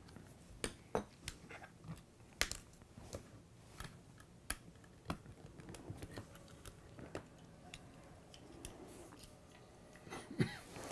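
Faint, irregular plastic clicks and taps as the halves of an LGB model-locomotive motor block's plastic housing are worked apart by hand, with a louder click near the end.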